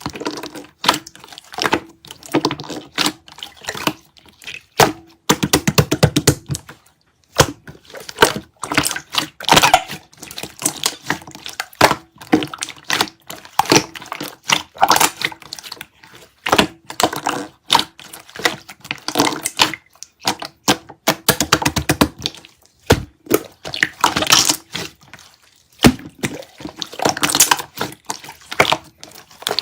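Slime being squeezed, pressed and folded by hand, giving dense runs of sharp clicks and crackling pops with brief pauses.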